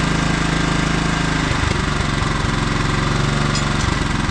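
Riding lawn mower's engine running steadily, its note changing about a second and a half in.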